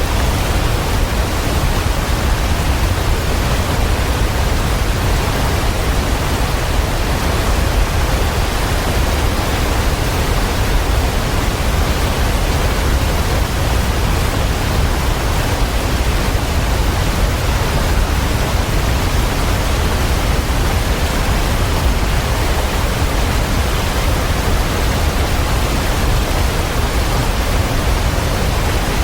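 Waterfall: a steady, even rush of falling water, heaviest in the low end, with no change or separate events.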